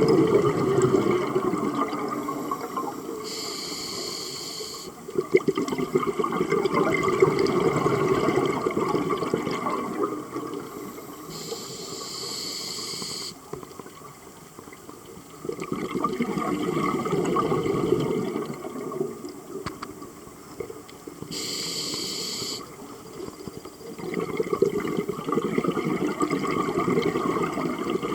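Scuba diver breathing through a regulator underwater: three short hissing inhales, each followed by several seconds of rumbling exhaust bubbles.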